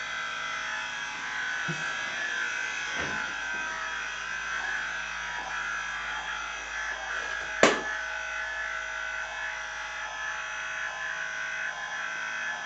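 Small electric DC motor running steadily with an even buzzing whine as it slowly turns a wooden rotating TV stand. One sharp knock a little past halfway.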